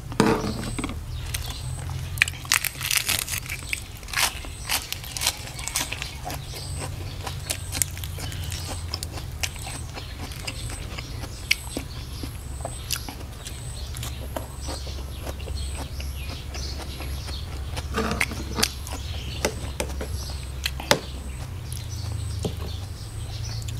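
Eating and mixing sounds: a metal spoon clinks and scrapes through a saucy duck-egg salad, with lettuce leaves crunching and scattered chewing. A steady low hum runs underneath.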